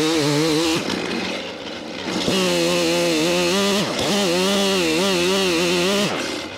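Gas chainsaw cutting into mimosa stumps at full throttle, its pitch wavering under load. The throttle is let off about a second in, the engine falling toward idle, then opened again to keep cutting, and let off once more near the end.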